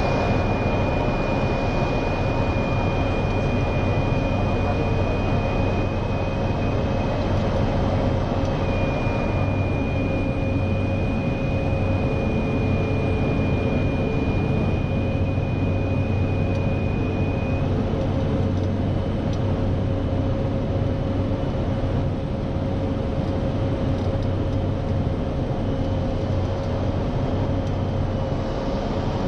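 Cessna Grand Caravan 208EX's single turboprop engine and propeller droning steadily, heard inside the cockpit on final approach to land. A thin high whine sits over the drone and drops out about two-thirds of the way through.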